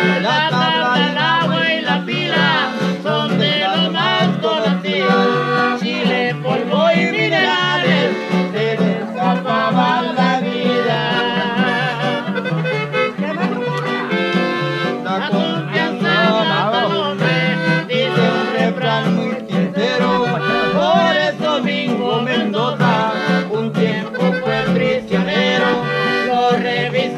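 Live norteño music: a button accordion playing the melody over a guitar and a steady bass rhythm.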